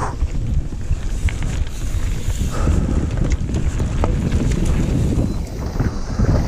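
Trek Remedy mountain bike descending a dirt singletrack at speed: tyre rumble on the dirt and wind buffeting the microphone, with scattered rattles and clicks from the bike over the bumps.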